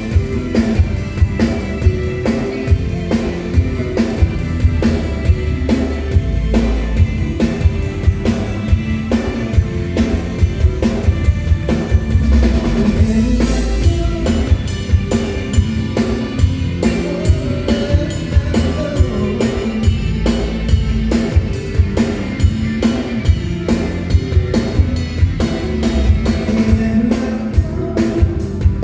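Live band playing through a PA system: a steady drum-kit beat with bass drum, bass and electric guitar, and a cymbal crash about halfway through.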